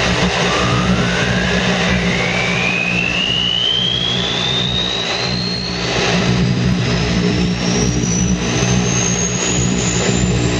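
Shortwave radio receiving a strong, droning humming signal over static, which sounds like a fleet of propeller bombers. A whistle tone rises steadily in pitch from low to very high across the whole stretch, as the signal drifts or the set is tuned.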